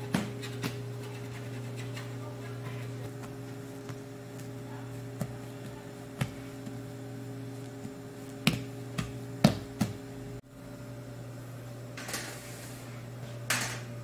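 Steady electrical mains hum, with scattered light knocks and taps and a couple of brief scrapes as plastic dough boards are handled.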